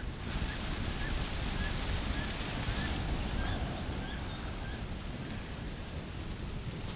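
Steady rush of a large waterfall, with short high chirps repeating over it about twice a second. The sound cuts off abruptly at the end.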